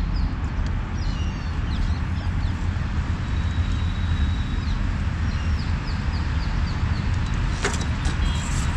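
Steady wind rumble on the microphone of a camera travelling on a moving bicycle. Birds chirp repeatedly over it.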